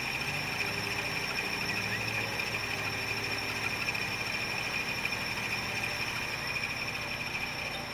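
Car engine idling steadily at a drive-thru window, with a steady high whine over it.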